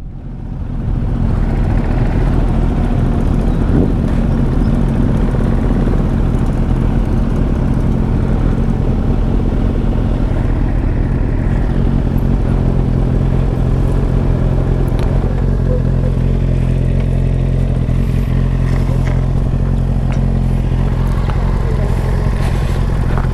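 Superbike engines idling steadily at a standstill.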